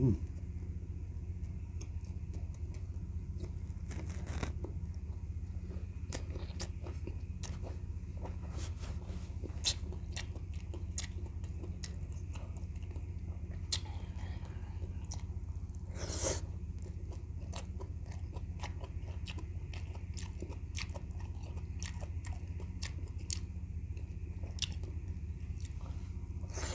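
Close-up eating sounds: wet chewing and mouth clicks from soft, gelatinous boiled goat feet and tendon and leafy pechay, with a few louder mouth sounds about four and sixteen seconds in, over a steady low hum.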